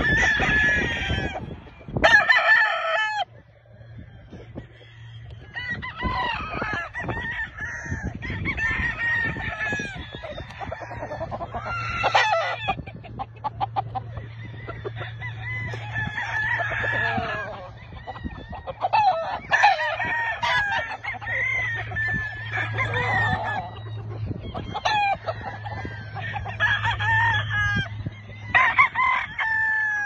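Roosters crowing over and over, with clucking between the crows; the loudest crows come at the start and near the end. A steady low hum runs beneath from about three seconds in.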